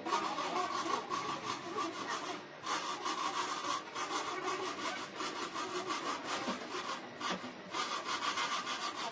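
Quick, regular rasping strokes of a tool cutting or abrading material. They pause briefly about two and a half seconds in and again near four seconds, with a longer pause a little after seven seconds.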